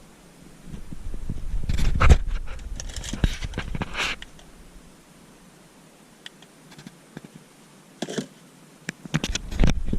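Handling noise close to the microphone: rustling, scraping and clicks with dull bumps. It comes in a bout of about three seconds starting about a second in, then a quiet stretch with a few faint ticks, then more near the end.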